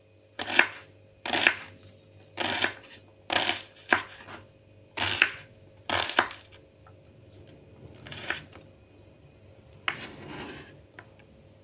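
A kitchen knife cutting half an onion into chunks on a wooden cutting board: a crisp crunch and knock with each cut, about eight cuts at roughly one a second, then a softer one near the end.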